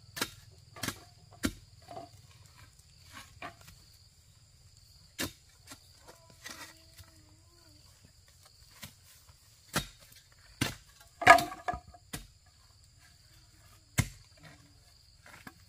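Long metal digging bar jabbed repeatedly into the earth, giving irregular sharp thuds and knocks, the loudest a cluster around eleven seconds in. Crickets or other insects keep up a steady high buzz behind.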